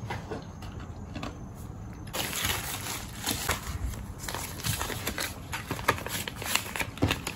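Clear plastic packaging bags and paper label sheets rustling and crinkling as they are handled and gathered up, a run of irregular crackles that gets busier about two seconds in.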